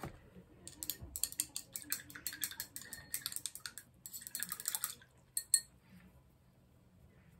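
Quick runs of light clinks and rattles, small hard things knocking against a glass or ceramic container, ending with two sharper clicks about five and a half seconds in.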